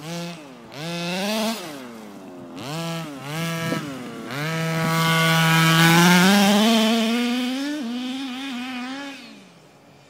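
Small two-stroke engine of a radio-controlled off-road buggy revving in four short blips, then held at high revs for about five seconds with a slight rise in pitch as the buggy drives across the grass. It fades away near the end as the buggy moves off.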